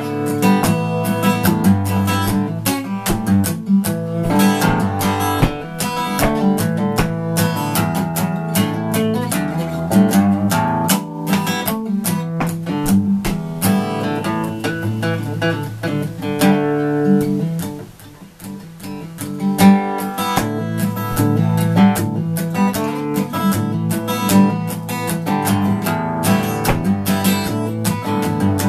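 Solo cutaway acoustic guitar played with a pick: a steady run of picked and strummed notes, dropping briefly to a soft, ringing lull about two-thirds of the way through before the picking resumes.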